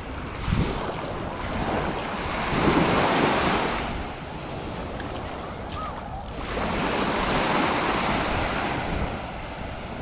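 Small waves breaking and washing up a sandy beach, swelling twice in slow surges, with wind rumbling on the microphone.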